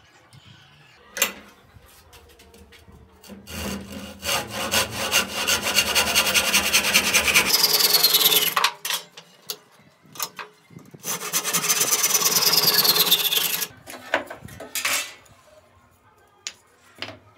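Hand saw cutting across a wooden board held in a bench vise, in two long runs of rapid back-and-forth strokes with a short pause between them.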